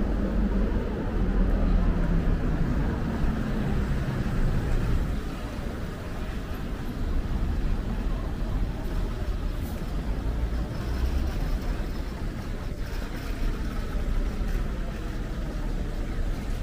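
City road traffic: cars and trucks driving past on the road alongside, a steady low engine and tyre rumble that is loudest in the first few seconds and eases off a little after that.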